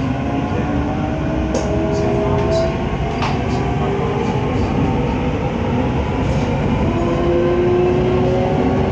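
Train pulling away and gathering speed, heard from inside a carriage: the drive's whine slowly rises in pitch over a steady rumble of wheels on the track, with a few sharp clicks.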